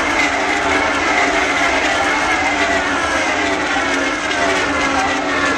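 A pack of IndyCars' Honda V8 engines running at high revs as the cars race past the grandstand. Several engine notes overlap, each falling slowly in pitch as the cars go by and pull away down the straight.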